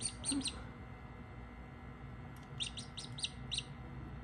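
Australorp chick peeping: short, high peeps that drop in pitch, in quick runs, one ending about half a second in and another of about six peeps a little past the middle.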